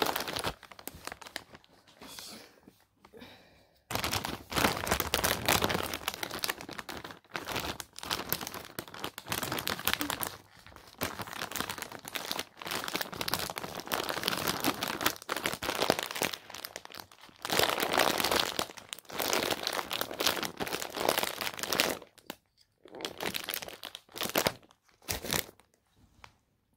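Kitten crunching dry kibble close to the microphone: dense runs of small crackling crunches with short pauses, quieter for the first few seconds and in a few breaks near the end.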